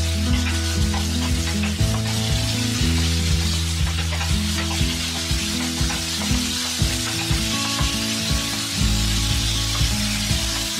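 Thin-sliced pork sizzling in hot olive oil in a nonstick frying pan, with the scrapes and light knocks of a spatula stirring it. Steady low background music runs underneath.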